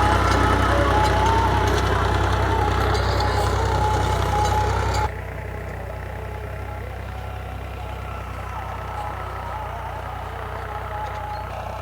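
Diesel engine of a Powertrac Euro 45 tractor running steadily while ploughing. It drops suddenly in loudness about five seconds in and then runs on more quietly.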